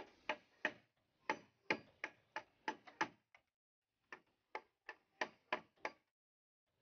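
Rapid knocks of a hand tool striking bamboo, about three sharp blows a second, in two runs split by a short pause just past the middle.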